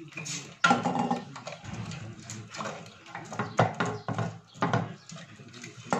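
Wooden spoon stirring a bubbling carob and caramel liquid in a stainless-steel pot, knocking against the pot several times.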